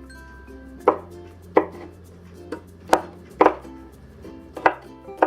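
Kitchen knife cutting wood ear mushrooms in half on a cutting board: about eight sharp, unevenly spaced knife taps against the board.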